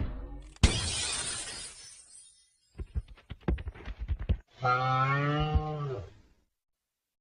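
Stock cartoon sound effects: a sudden glass crash that rings away over about two seconds, a quick run of clattering clicks, then a cow's moo about a second and a half long that dips in pitch at the end.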